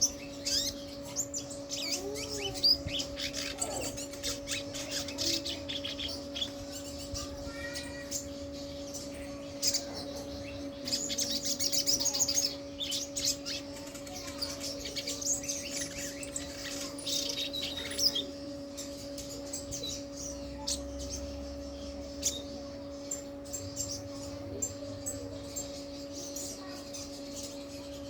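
Sogon, the crimson sunbird, singing a loud, fast run of high chirps and trills, densest and loudest about eleven seconds in. A steady low hum runs underneath.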